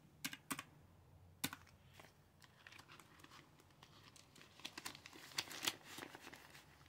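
Faint crinkling of paper cash and envelopes being handled, with a few sharp ticks in the first second and a run of crinkles about two-thirds of the way through.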